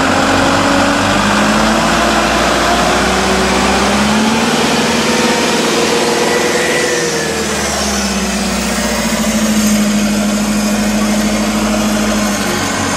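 Avia trial truck's diesel engine running under load as the truck crawls over rough off-road ground, its note stepping up and down with the throttle.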